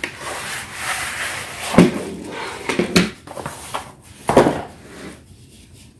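Bamboo drawer dividers sliding and scraping out of a cardboard box, then knocking against each other and the countertop in three sharp wooden clacks.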